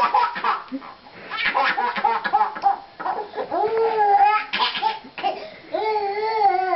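Baby laughing in runs of quick giggles, with two longer drawn-out laughs, one about three seconds in and another near the end.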